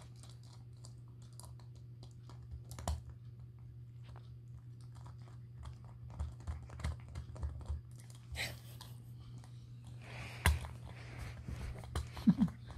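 Small Morkie puppy chewing and gnawing on a plastic McDonald's Happy Meal toy: irregular clicks and crunches of teeth on plastic, coming thicker in the second half, with a few sharper snaps near the end.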